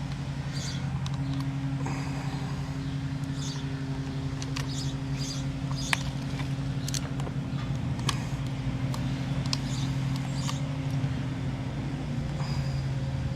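Scattered small clicks and light metallic taps of hand-tool work on the e-bike's wiring and ground bolt, over a steady low mechanical hum.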